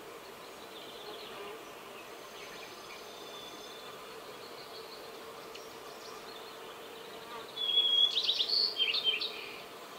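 White-crowned sparrow singing, starting about seven and a half seconds in: a clear whistle, then a run of buzzy, trilled notes. It sounds over a faint steady drone, with fainter high bird notes earlier.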